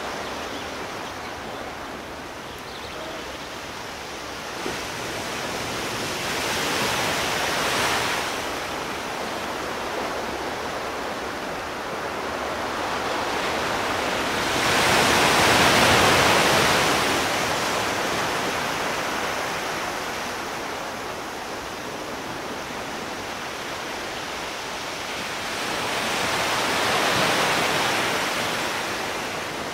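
Sea surf: a continuous rush of waves breaking and washing in, swelling three times, with the biggest surge about halfway through.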